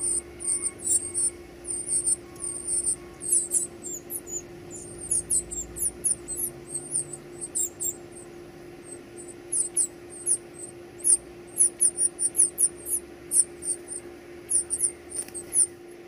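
Northern cardinal nestlings begging for food: many rapid, very high, thin squeaky peeps in quick runs that thin out for a few seconds midway. A steady low hum sits underneath.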